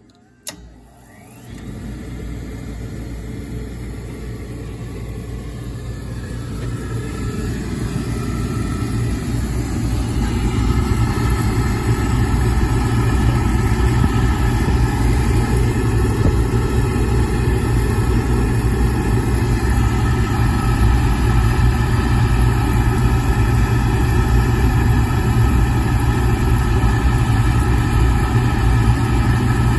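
A switch clicks, then an oil furnace burner starts up. Its motor and flame run with a steady low rumble that grows louder over about ten seconds, then holds steady.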